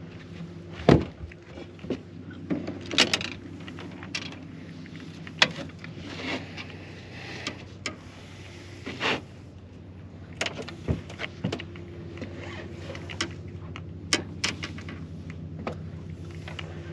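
Scattered knocks, clicks and rattles of a landed speckled seatrout and fishing gear being handled on a small boat's deck, the loudest knock about a second in, over a steady low hum.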